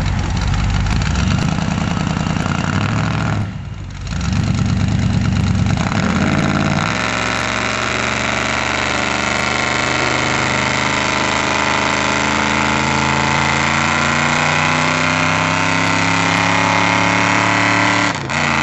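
Lifted 1984 Dodge pickup's 440 big-block V8 doing a burnout on 44-inch Boggers mud tires, the rear tires spinning in place. The engine revs, drops back briefly about three and a half seconds in, then from about seven seconds in is held at high revs that creep slowly higher, with a short dip near the end.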